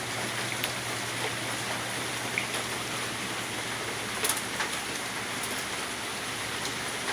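Heavy rain and hail falling in a thunderstorm, a steady hiss with scattered sharp ticks of stones striking, the strongest about four seconds in.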